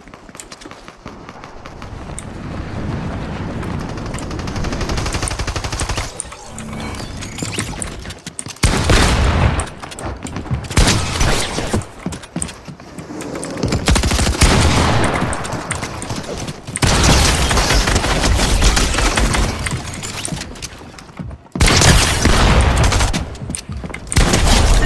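Shooter video game audio: rapid gunfire in several long bursts with short breaks between them.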